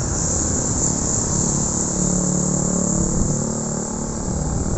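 Steady outdoor background noise: a low rumble under a steady high hiss, with no distinct event.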